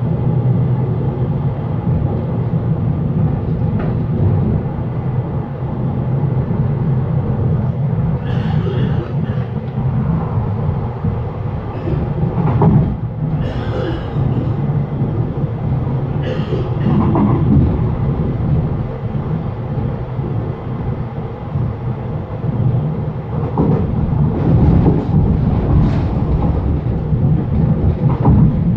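Passenger train running, heard from inside the carriage by the doors: a steady low rumble of wheels on track, with several brief sharper, higher noises over it.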